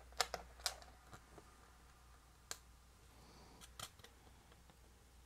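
Faint scattered clicks and taps of small metal brackets, nuts and bolts being handled and fitted by hand onto a clear acrylic plate, a few in the first second and a couple more later.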